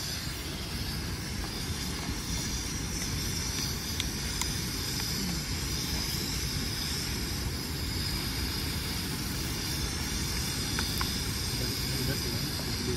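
Steady rushing roar of a nearby waterfall, with no distinct events apart from a few faint clicks.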